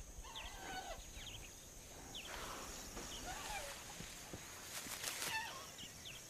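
Savanna ambience: scattered short bird chirps over a steady, high-pitched insect drone, with a couple of brief rustles.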